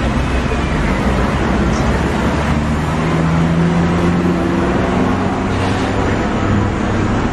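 Street traffic: steady road noise, with a motor vehicle's engine humming louder for a couple of seconds near the middle.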